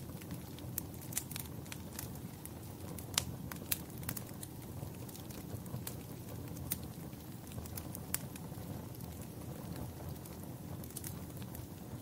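Fire crackling: a steady low rumble of flames with frequent sharp pops and snaps, two louder pops a little past three seconds in.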